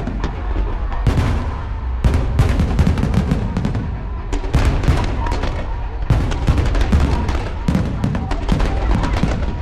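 Fireworks going off in a dense barrage: rapid overlapping bangs and crackling with deep booms, with no break.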